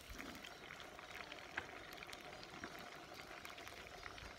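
Tomato sauce and sliced onions sizzling softly in a frying pan on a gas stove, a faint steady crackle with scattered small ticks. A sharp click right at the end.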